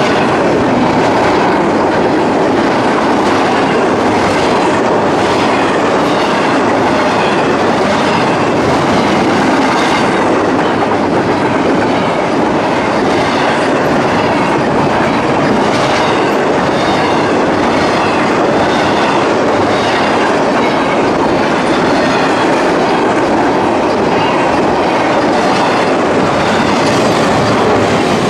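CSX freight train's cars rolling past close by: a steady, loud rumble of wheels on rail with a regular clickety-clack as the wheels cross the rail joints.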